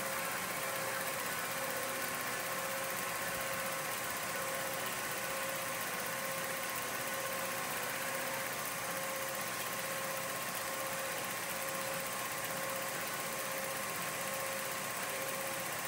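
Film projector running: a steady mechanical hum with two constant tones over an even hiss, unchanging throughout.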